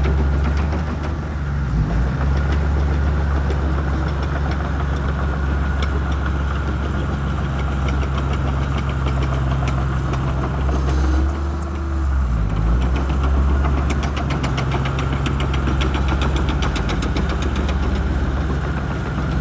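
Shantui bulldozer's diesel engine running steadily under load, its low note dipping briefly about two seconds in and again near the middle. A faint fast rattle runs along with it.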